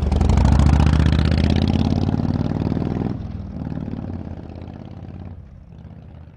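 Motorcycle engine running, loudest at the start, with its pitch rising a little before dropping about three seconds in. The sound then fades away steadily.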